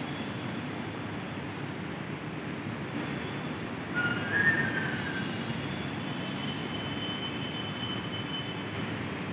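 Steady distant rumble of city traffic and trains. About four seconds in, a brief high whistle-like tone rises and falls and is the loudest sound. A thin, faint, high whistle tone then holds for about three seconds.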